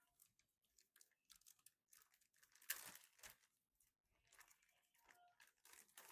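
Quiet crinkling and tearing of motherboard packaging being handled and opened, a string of short crackles with the loudest burst about halfway through.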